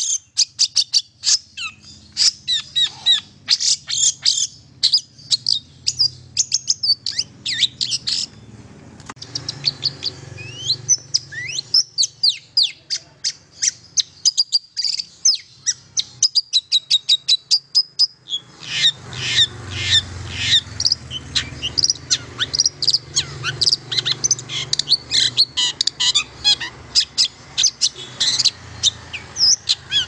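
Long-tailed shrike (cendet) singing a fast, varied stream of sharp chirps, trills and whistled notes, with short lulls between bouts.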